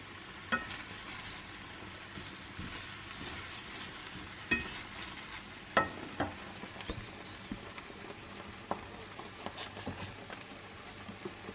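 Mushroom sauce sizzling in a pan as it is stirred, a steady faint hiss with sharp clicks of the utensil against the pan, the strongest about half a second in and twice around five to six seconds in.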